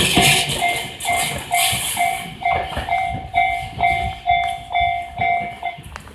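Level crossing warning bell dinging about twice a second as the last cars of Tobu Tojo Line train set 31614F pass. The rolling and wheel noise fades about two seconds in, and the bell stops just before the end.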